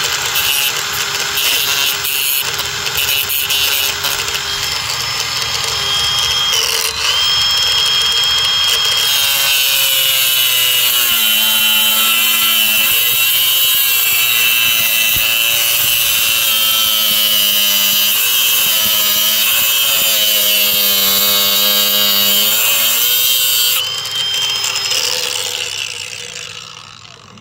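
Ryobi cordless angle grinder with a cut-off disc cutting through a miniature railway rail. The high motor whine drops and wavers under load as the disc bites into the metal, with a harsh grinding noise over it. Near the end the whine rises again as the disc comes free, and the grinder winds down after it is switched off.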